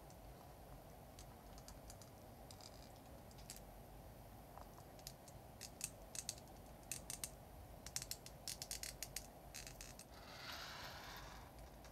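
Plastic parts of an HG Agrissa Gunpla model kit clicking and snapping as they are pressed and fitted together by hand, with a run of quick sharp clicks in the middle. A brief scraping rustle follows near the end.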